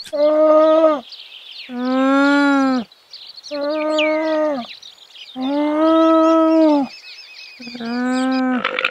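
An alpaca gives five long, steady-pitched calls, each about a second long with a drop in pitch at its end, separated by short pauses.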